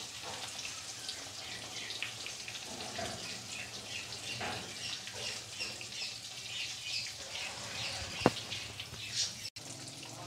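Marinated surmai (king mackerel) steaks frying in hot oil in a pan, a steady crackling sizzle with one sharp pop about eight seconds in.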